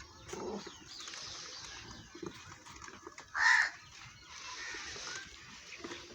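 Birds chirping and calling in the background, with one short, loud call about halfway through.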